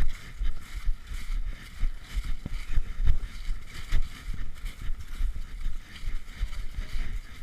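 Irregular low thumps and rumble of a body-worn camera's microphone jostled by walking movement, over a steady high hiss.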